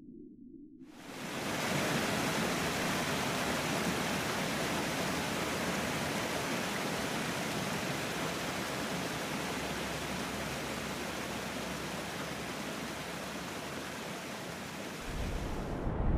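Waterfall: water falling down a rock face, a steady rushing hiss that starts suddenly about a second in. A low rumble joins it near the end.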